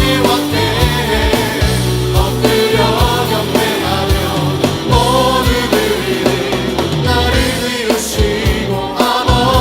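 Contemporary Christian worship band music with a steady drum beat and sung voices.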